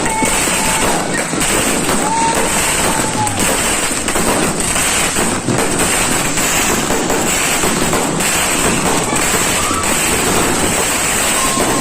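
New Year fireworks going off in a dense, continuous barrage of overlapping bangs and crackles.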